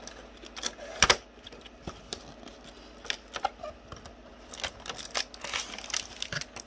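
A cardboard toy box being opened by hand: the flaps and the packaging inside scrape and click in an uneven run of sharp taps, the loudest a little after a second in.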